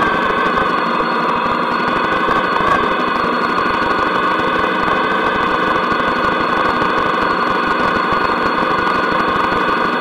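Motorcycle engine running at a steady speed, its note holding unchanged without revving up or down.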